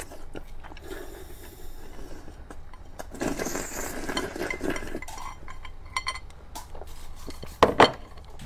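Eating utensils clinking and scraping against a noodle bowl, with scattered clicks and two sharp knocks close together near the end.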